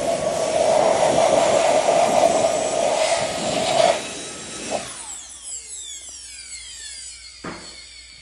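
Electric mortising machine running and cutting into green oak for about four seconds, then switched off, its motor winding down with a falling whine; a single knock comes near the end.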